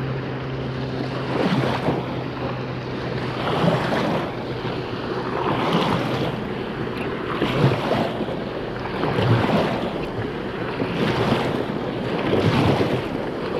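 Wind buffeting the microphone over small waves washing onto a sandy shore, the noise swelling and easing about every two seconds.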